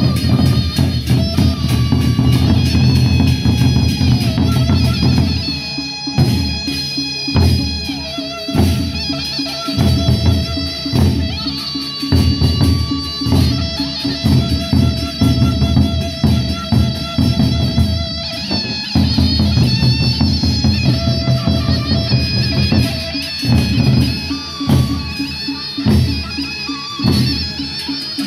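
Sasak gendang beleq ensemble playing: large double-headed barrel drums beaten with sticks in a fast, dense rhythm, with held melodic tones above the drumming. The drumming thins out after about six seconds and builds up again after about nineteen.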